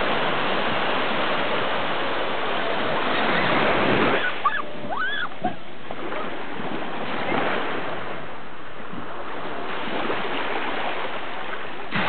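Small waves breaking and washing up the sand: a steady rush that falls away about four seconds in, then returns in softer swells of wash. A few short high calls come about four to five seconds in.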